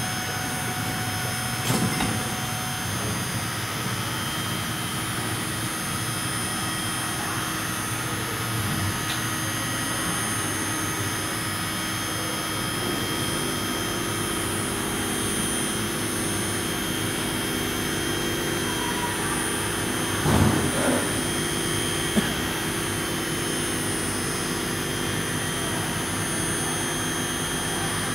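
TigerTec TR408 CNC router homing its three axes (return to zero), its axis drives running with a steady mechanical hum over workshop noise. A lower steady whine joins about halfway through as another axis starts moving, and there is a single knock about two-thirds of the way in.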